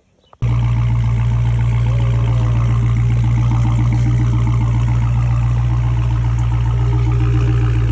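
Dodge Hellcat's supercharged V8 idling steadily, cutting in abruptly about half a second in with a loud, deep hum.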